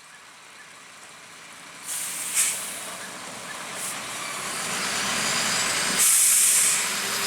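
Heavy vehicle's air brakes hissing as it comes closer: short hisses about two and a half and four seconds in, then a louder hiss lasting most of a second near the end, over growing road and engine noise.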